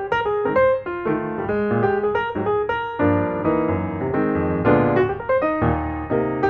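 Piano music: a steady run of notes in the melody over lower held bass notes.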